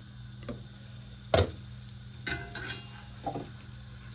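Cookware knocks and clinks as a cast-iron frying pan and its glass lid are handled. There are four separate knocks, the loudest about a third of the way in, over a steady low hum.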